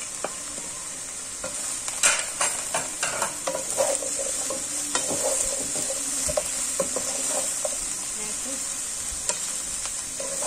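Diced vegetables sizzling in olive oil in a nonstick frying pan, with a steady hiss. From about two seconds in, a wooden spatula stirs them, adding short clicks and scrapes against the pan.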